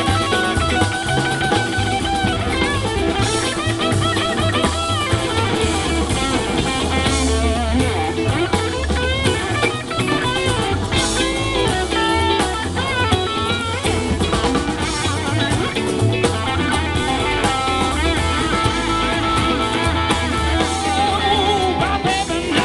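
Live blues band playing an instrumental passage: electric guitars, acoustic guitar and drum kit, with a lead guitar bending notes over the steady rhythm.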